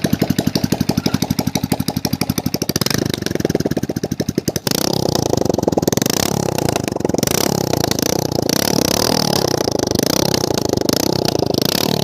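Hero Super Splendor single-cylinder four-stroke motorcycle engine heard through its exhaust silencer, which is under repair for a sound problem. It idles with an even pulsing beat, then from about five seconds in is revved up and down.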